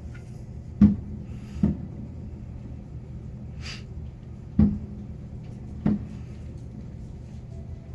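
Fireworks going off at a distance: four sharp bangs, each with a low thud, over a steady low rumble, with a short hiss about three and a half seconds in.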